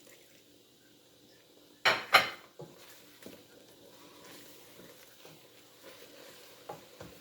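A spoon knocking against a cooking pot while stirring fufu: two loud knocks close together about two seconds in, then a few lighter taps.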